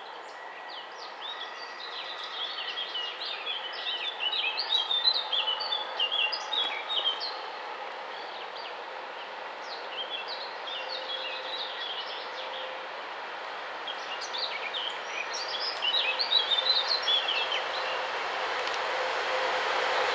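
Birds chirping and singing in two spells, over the sound of a VL80t electric locomotive and its freight train approaching, which grows steadily louder toward the end.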